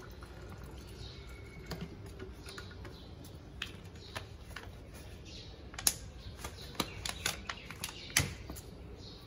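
Plastic bottles and a spray bottle being handled while petrol is mixed into diesel: scattered sharp plastic clicks and taps, the loudest about six and eight seconds in.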